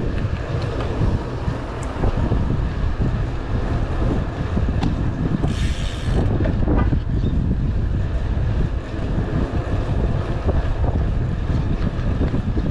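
Wind buffeting the microphone of a camera on a moving bicycle: a steady, loud low rumble, with a brief hiss about halfway through.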